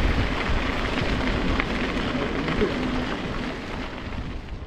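Wind buffeting the microphone of a camera riding on a moving mountain bike, a steady rushing noise heaviest in the low end, fading out near the end.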